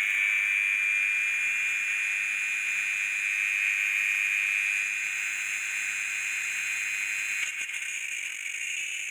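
Small electric motor running at speed with a steady high whine after spinning up, easing off about three-quarters of the way through.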